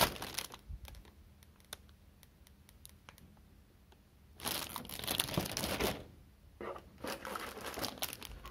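Clear plastic polybags holding plastic model kit runners crinkling as they are handled: a short burst at the start, then two longer bursts from about four and a half seconds in, with light ticks of plastic in between.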